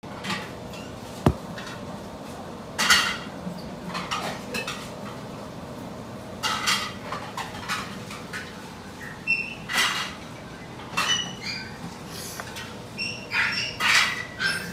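Bichon Frise puppy moving about and sniffing close by: scattered short scuffs, sniffs and clicks, with a sharp knock about a second in and a few brief high squeaks in the second half.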